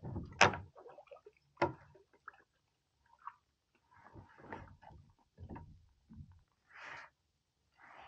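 Hollow knocks and clatter of gear against the plastic hull of a Hobie Passport 12 kayak as a landing net is handled, two sharp knocks loudest early on, then lighter rattles and a few short hissy rustles.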